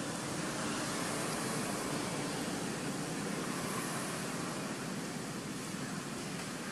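Steady outdoor background noise, an even hiss with no distinct sounds standing out.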